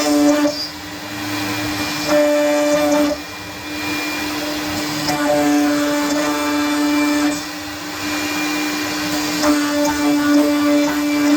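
CNC router spindle carving an MDF sheet, running with a steady whine. A louder, buzzier tone comes and goes in stretches of one to two seconds, about four times, as the machine works the cut.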